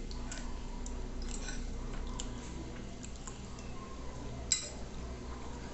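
Close-up eating sounds from spaghetti and meatballs in sauce: soft wet chewing and slurping with small mouth clicks. About four and a half seconds in comes one sharp, ringing clink of a fork against the plate.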